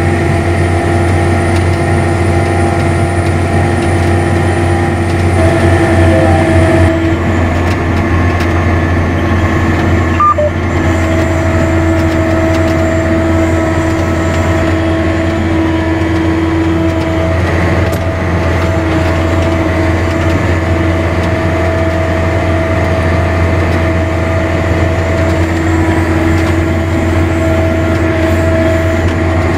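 John Deere 9120 four-wheel-drive tractor's diesel engine running steadily under load as it pulls a mulch finisher through the soil. It makes a low drone with steady whining tones above it.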